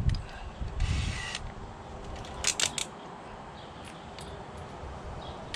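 Hand handling of a cordless drill while a bit is fitted into its chuck: a short rattle about a second in, then a quick run of sharp clicks, and a few faint ticks after.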